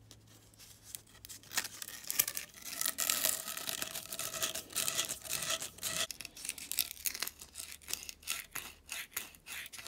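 P60 grit abrasive cloth rubbed back and forth over a copper pipe end and fitting, a rapid scratchy rasping of repeated strokes that starts about a second in, with a thin squeak in the middle. The copper is being scoured clean and keyed with grooves before it is bonded.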